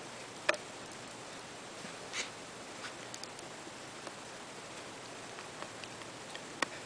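Screwdriver driving a small screw through a plastic robot wheel's hub into a servo horn: scattered small ticks and handling rustles, with a sharp click about half a second in and another near the end.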